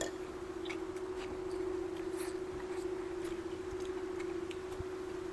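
A steady hum with faint, scattered clicks and small clinks of people eating with their hands and spoons at plates.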